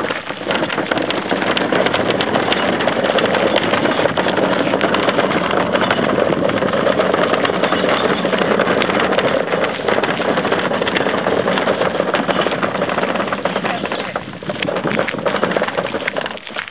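Plastic wheelie bin rolling on its two hard wheels over a gravel driveway: a steady, loud rumble that dips briefly and falls off near the end.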